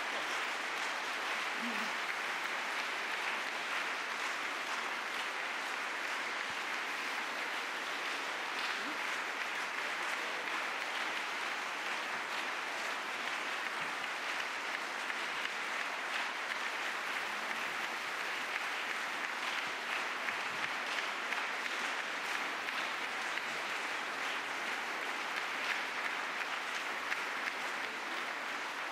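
Audience applauding steadily: many hands clapping at once in a dense, unbroken stream.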